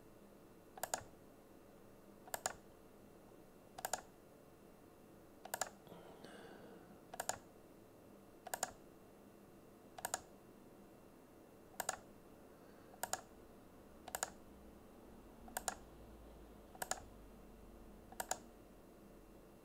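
Computer mouse button clicked at a slow, even pace, about thirteen sharp clicks roughly a second and a half apart, each a quick double tick, as the points of a zigzag line are placed one by one in CAD software.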